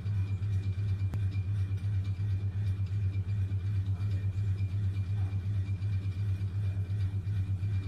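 A steady low mechanical hum that pulses evenly about four times a second, with a faint high steady tone above it.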